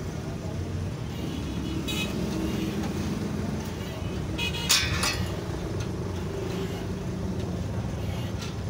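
Steady low rumble of street traffic, with a single sharp metallic clank about halfway through as the chrome motorcycle crash-guard bar is lifted and knocks.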